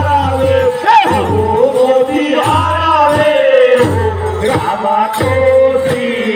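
Chaitawar folk song: voices singing in long, wavering lines over many large frame drums beaten together, giving a steady low drumming.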